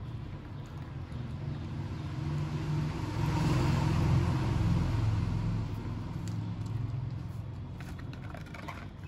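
A road vehicle passing by, its low rumble swelling to a peak about four seconds in and then fading away.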